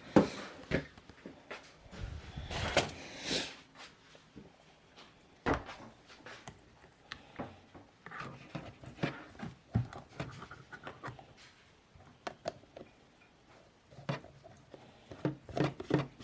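Scattered household knocks and clicks from objects being handled, with a brief rustling stretch about two to three seconds in.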